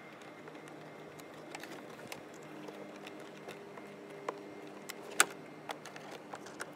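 Light clicks and handling noises from working on a car door's plastic parts, with one sharper click about five seconds in. A faint steady hum runs underneath for a couple of seconds in the middle.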